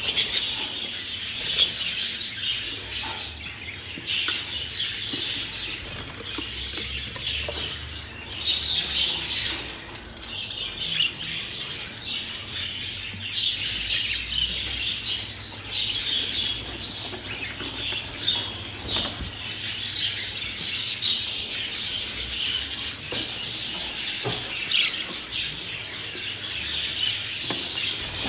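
A group of budgerigars chattering and chirping continuously, a dense stream of short high notes.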